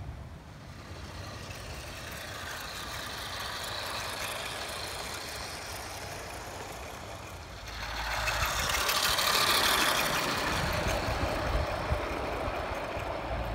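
Battery-powered Lima 4F model train with three coaches running on outdoor garden track: a steady rolling rumble of wheels on rail that grows louder about eight seconds in as the train passes close.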